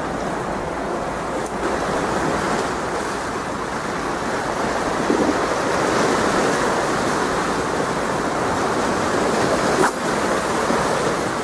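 Sea waves washing and breaking over a rocky shore, a steady rushing, with one short knock near the end.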